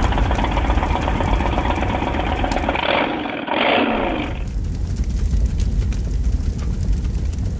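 An engine running with a steady deep rumble. For the first half a loud rushing whoosh lies over it, sweeping downward about three and a half seconds in before dropping away and leaving the rumble on its own.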